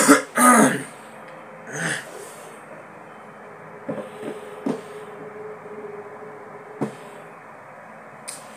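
A man coughs twice in quick succession, clearing his throat, then a few light taps and knocks.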